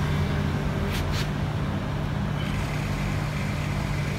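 Steady low hum of a running electric water pump in a cooling loop, with two quick clicks about a second in.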